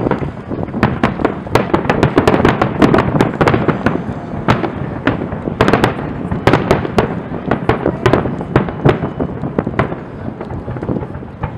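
Aerial fireworks exploding in a rapid barrage of overlapping bangs, thinning out over the last few seconds.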